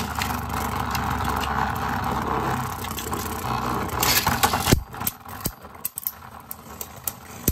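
A Beyblade top spinning on a plastic stadium floor with a steady whirring buzz. About four seconds in, a second top is ripped off its launcher with a brief rush and lands with a sharp clack. After that, the two tops spin together with scattered clicks as they knock into each other.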